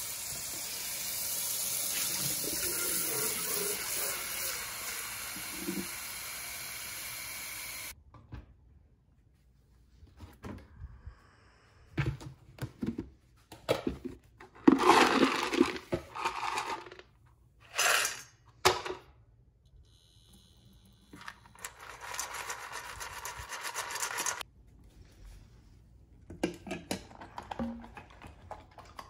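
Kitchen tap running steadily for about eight seconds, then cut off suddenly. After that come scattered clatters of a stainless steel dog bowl and a plastic food container being handled, with another short stretch of steady running noise later.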